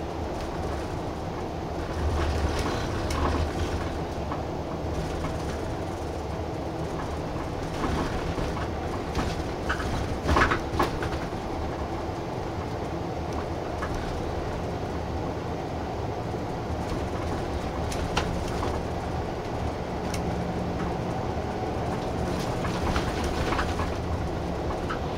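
Cabin of a route bus under way: steady engine and road hum with the interior rattling now and then, and a sharper clatter about ten seconds in, the loudest moment.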